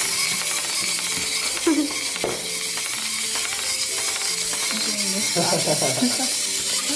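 Battery-powered pooping toy running its mechanism over a steady hiss, with clicks as it pops small plastic balls out onto a wooden table.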